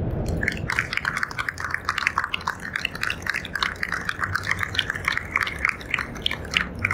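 Audience applauding, many hands clapping in a dense patter that starts about half a second in.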